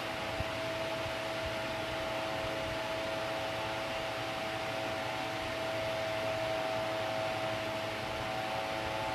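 Steady room noise: an even hiss with a constant machine-like hum, with one small click shortly after the start.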